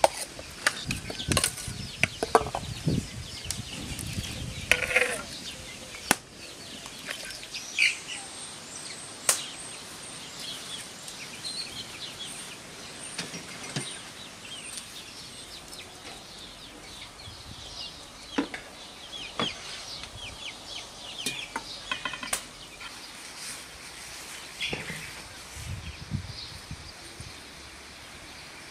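Chickens clucking in the background, with scattered short clinks and knocks of metal and ceramic kitchenware being handled.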